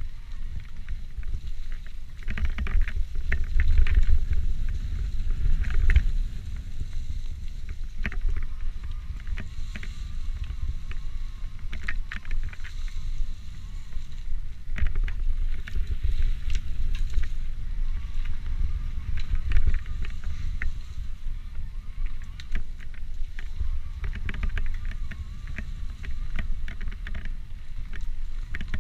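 Electric mountain bike ridden along a singletrail: a steady low rumble of wind on the microphone and rolling tyres, with frequent knocks and rattles from the bike over rough ground.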